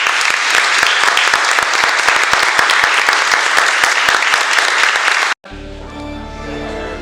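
Crowd applauding steadily for about five seconds, then cut off abruptly; quieter instrumental music follows.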